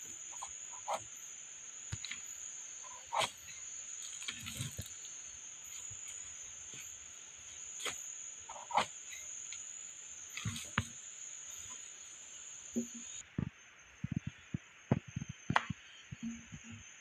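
Steady, high-pitched drone of forest insects that falls quieter about two-thirds of the way through, with scattered knocks and a quick run of dull thumps near the end.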